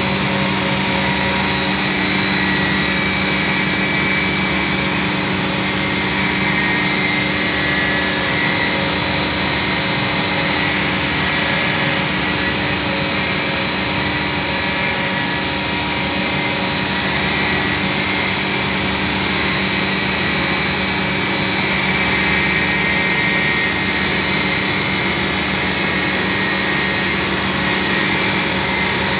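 Steady hum and whine of running machine-shop machinery, with several constant tones and no change in level throughout.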